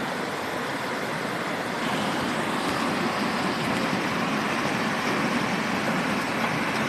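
Steady rushing noise that gets slightly louder about two seconds in.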